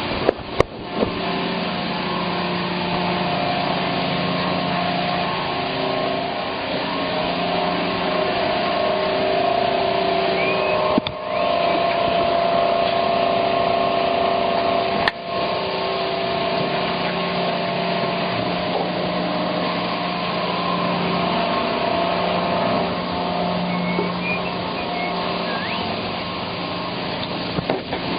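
An engine running steadily at an even speed, with a few sharp clicks over it, one near the start and two more partway through.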